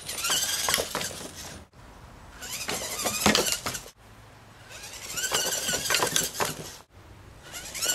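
Small remote-controlled rock-crawler robot's drive motor and gears whining, rising and falling in pitch as it drives at and climbs over a plastic pipe, with sharp knocks as the tyres hit the pipe and board. The sound breaks off abruptly three times between short runs.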